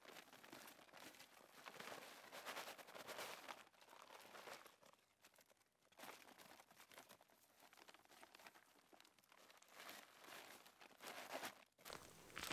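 Faint crinkling of a plastic sack and rustling of straw as the straw is shaken out of the bag into a plastic tub, coming in uneven bursts.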